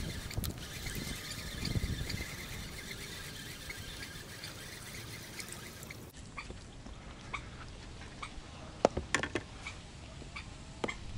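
A hooked crucian carp splashing at the water's surface as it is reeled in. About halfway through the sound changes, and a few sharp clicks and taps follow as the fish is handled and unhooked.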